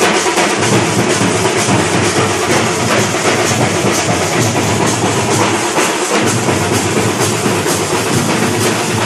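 Procession drum troupe playing loud, fast, continuous drumming: large double-headed drums beaten with sticks, with metal hand cymbals ringing along.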